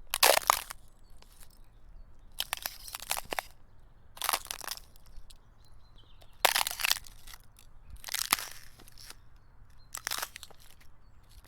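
Footsteps crunching in snow: six slow, evenly paced steps, one every second and a half to two seconds, each a short crunch.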